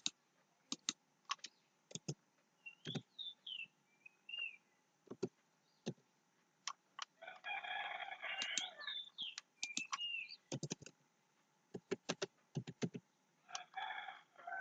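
Scattered computer keyboard and mouse clicks, with a bird calling in the background: a few high chirps, and two longer calls, the first about seven seconds in and a shorter one near the end.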